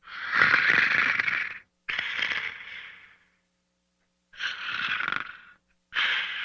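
Snoring in deep sleep: four rough, rattling breaths, each a second or so long, coming in two close pairs.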